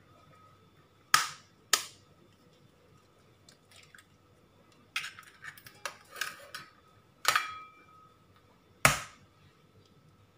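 Eggs being cracked against the rim of a stainless steel mixing bowl: a series of sharp taps, a few of them leaving a brief metallic ring from the bowl.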